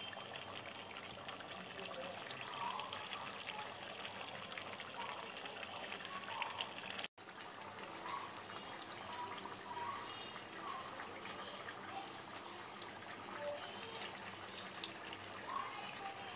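Chicken and potato curry simmering in an aluminium pot, a steady bubbling and hissing, cut off by a brief gap about seven seconds in.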